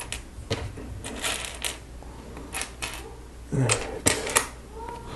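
Small plastic Lego pieces clicking and rattling against each other and a hard surface as they are handled and sorted, in irregular scattered clicks.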